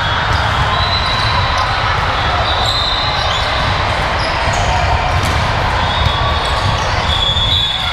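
Volleyball rally in a gym: the ball is struck and hits the court a few times, with players' shoes squeaking on the floor over a steady hall din.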